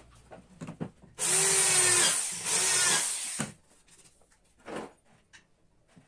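Electric drill driving screws into a wooden drawer front in two short runs of about a second each, with light handling knocks before and after.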